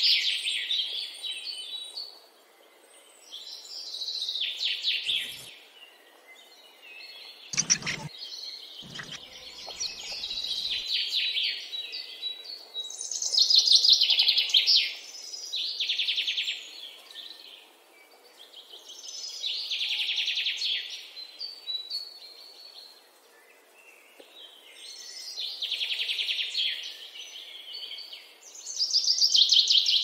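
Songbirds calling in bursts of rapid, high chirping trills every few seconds, with short quiet gaps between them. A couple of brief low thumps come about eight seconds in.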